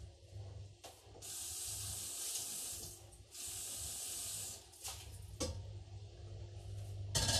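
Tap water running into a metal wok in two steady streams, the first about two seconds long and the second about one, followed by a few knocks and a clatter of the pan near the end.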